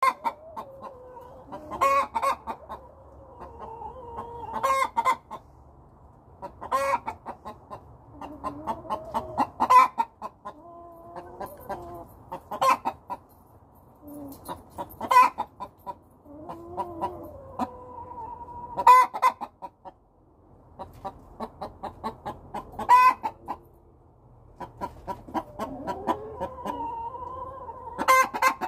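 Hens clucking and making long, drawn-out calls, broken by a sharp squawk every few seconds.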